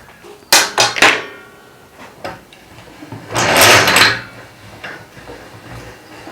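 Metal pieces and tools being handled while small lengths are cut: two sharp clanks about half a second apart, the second ringing briefly, then a short rough scraping rasp about three seconds in.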